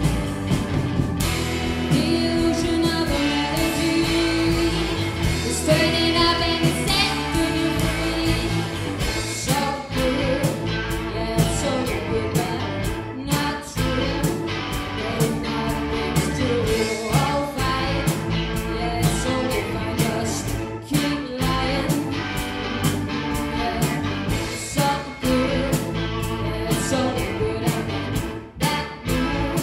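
A live five-piece blues-rooted band playing a steady groove on drums, bass, guitar and keyboard, with a woman singing the lead over it.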